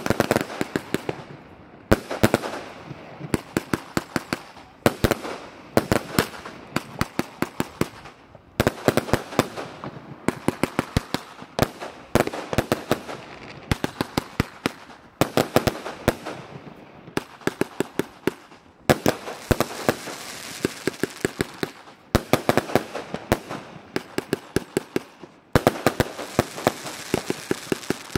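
Lesli Prezident Piro firework battery (144 shots, 25 mm calibre) firing in the middle of its run: quick volleys of rapid bangs, a new volley every second or two.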